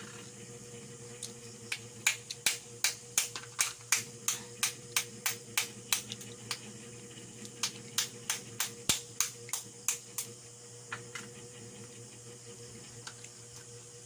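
Eating sounds: a quick run of sharp, wet mouth clicks, about three a second, from smacking while chewing. The clicks stop briefly halfway through, then start again.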